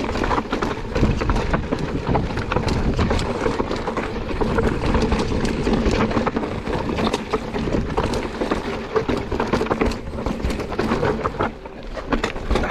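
Mountain bike descending a rough trail: tyres rumbling over rock and roots with frequent clattering knocks from the bike. It eases off near the end.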